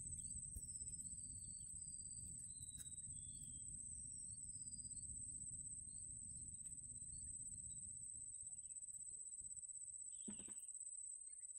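Insects stridulating in one unbroken high-pitched tone, with a run of short bird chirps in the first five seconds, over a low rumble that fades about eight seconds in; a brief knock comes about ten seconds in.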